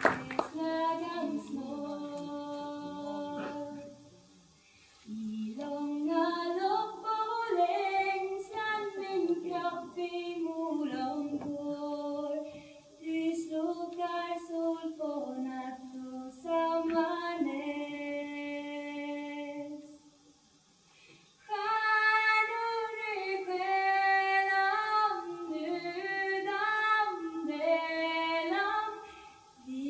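A woman singing unaccompanied, a slow melody of long held notes in phrases, with two short breaks between phrases.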